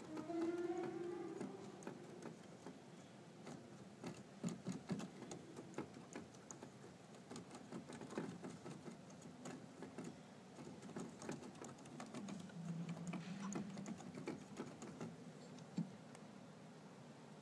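Church organ with a fault: fast, irregular clicking and tapping throughout, with a held note just at the start and a few faint low notes sounding briefly later on.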